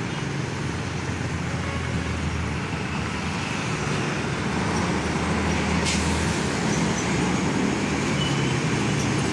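Diesel engine of a cab-over semi-truck pulling a flatbed trailer, passing close with a steady low drone over road traffic, growing a little louder as it comes alongside. There is a short sharp sound about six seconds in.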